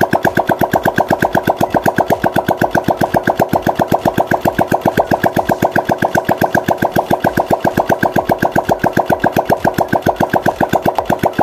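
Freshly assembled Yamaha Jupiter MX's single-cylinder four-stroke engine running steadily at idle, an even train of quick exhaust pulses.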